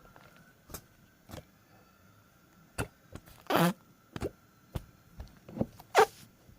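Slime being squished and stretched by hand, giving irregular small pops and clicks with two louder squelches, about halfway and near the end.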